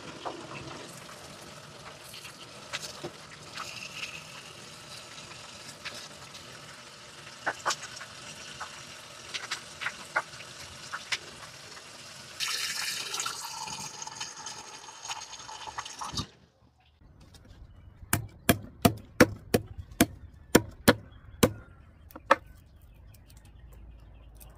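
Leafy vines rustling as they are handled, with scattered small snaps. About halfway through, tap water runs steadily onto the greens in a sink for a few seconds and cuts off. Then comes a quick series of about a dozen sharp knocks, a cleaver striking a wooden cutting board.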